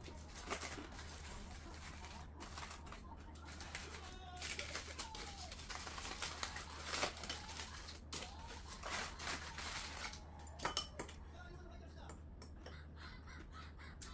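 Aluminium foil crinkling and rustling as a kimbap wrapper is handled and crumpled, with a few sharper crackles, fading out about 11 seconds in.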